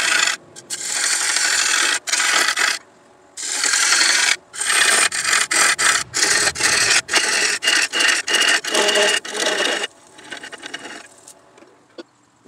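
A turning tool cutting a spinning dogwood bowl on a wood lathe: a harsh scraping rasp in repeated passes, longer at first and then short strokes with brief gaps. It stops a couple of seconds before the end.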